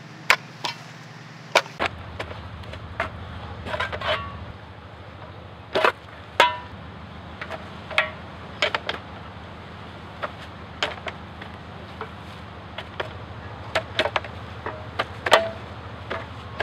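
Shovels digging: irregular sharp strikes of metal blades into dirt, some with a short metallic ring, over a steady low hum.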